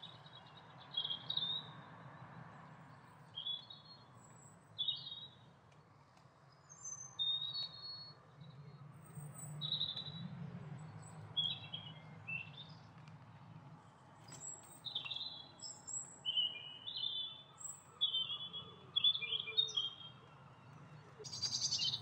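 Wild birds chirping and singing: many short, high chirps and trills, coming thick and fast in the second half, over a steady low background hum.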